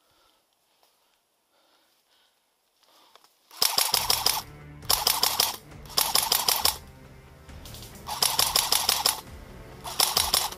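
An airsoft rifle firing five rapid full-auto bursts, beginning about three and a half seconds in after near silence. Background music plays under the bursts.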